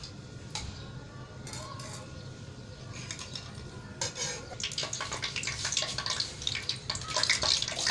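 Cooking oil heating in a nonstick wok, quiet at first with a few light clicks, then starting to crackle and sizzle about halfway through and growing louder toward the end as the oil gets hot.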